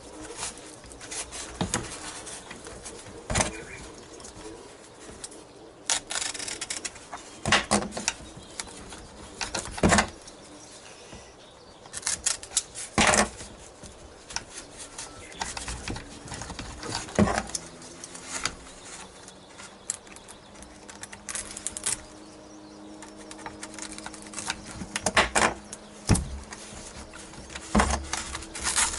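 Handling noise from working on a foam radio-controlled airplane on a wooden table: scattered knocks, taps and rustles as the foam airframe and tools are moved about.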